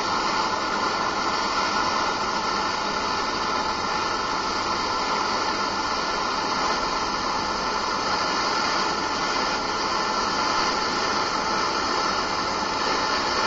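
Gas torch flame hissing steadily while it heats the joint of the tire wires for silver soldering.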